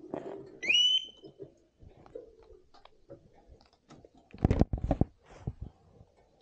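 Scattered clicks and knocks, with a short whistle that rises and then holds about a second in, and a loud cluster of sharp knocks about four and a half seconds in.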